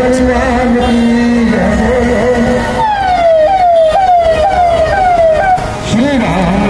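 Devotional music with a long held note, then an electronic siren cuts in about three seconds in and sounds five quick sweeps, each jumping up and sliding down in pitch, about two a second. The music returns near the end.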